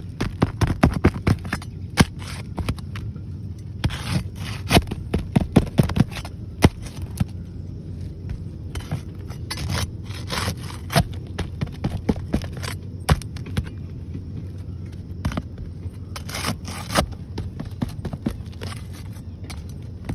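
Scraping and sharp clicks of a metal tool working under roof shingles to pry out their nails, in irregular bunches with pauses between.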